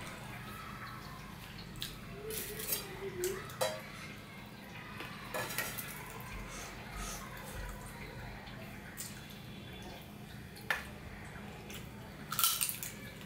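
Fingers working food and curry around a stainless steel plate: scattered light clicks and scrapes against the metal. Near the end a handful is eaten, with a short cluster of mouth sounds.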